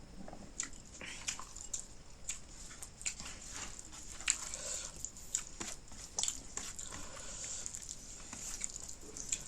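Close-miked eating sounds: irregular wet chewing and lip-smacking clicks of someone eating spicy fish curry with eromba.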